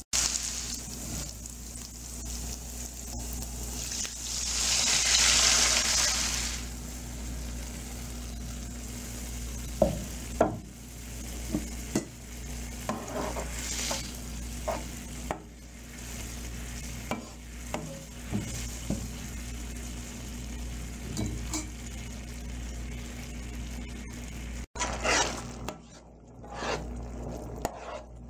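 Spring onions, garlic and chilli sizzling in hot oil in a pan while a spatula stirs, with louder sizzling for a couple of seconds about five seconds in. Later come scattered sharp clicks and scrapes of the spatula against the pan.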